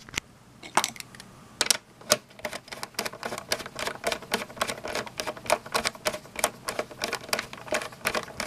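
Hex driver screwing a fuse holder into a multimeter's front panel: light metallic clicks, a few scattered at first, then a quick run of several a second as the driver is turned.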